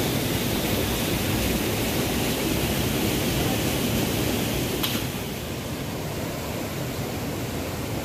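Steady rushing of a rocky stream and waterfall, an even hiss with no pauses. There is a brief click about five seconds in, after which the rush is slightly quieter.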